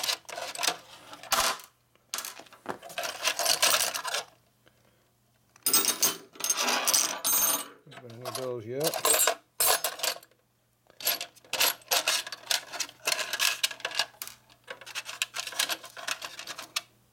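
Loose steel bolts, studs, nuts and washers clinking and clattering against each other and a steel parts tray as a hand rummages through them, in bursts with short pauses.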